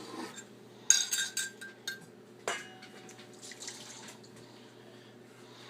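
Melted butter being poured into a mixing bowl: a dish clinks against the bowl about a second in and rings briefly, a second clink follows a moment later, with quiet pouring and handling sounds.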